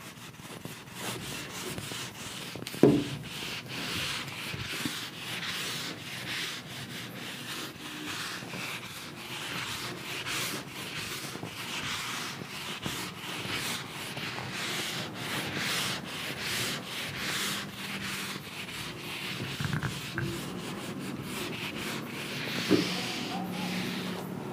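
Whiteboard duster rubbing over a whiteboard in repeated back-and-forth strokes, erasing marker writing, with a single knock about three seconds in.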